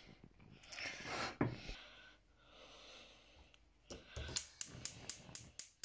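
Gas hob's spark igniter clicking rapidly and evenly, about four clicks a second, starting about four seconds in, as a burner is lit under a pot. Faint, soft kitchen noises come before it.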